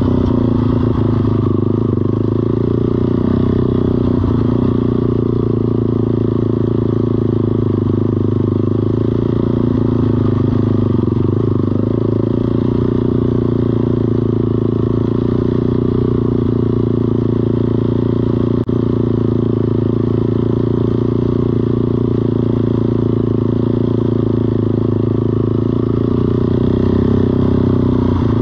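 ATV engine running at a steady, even speed, with one short click about two-thirds of the way through.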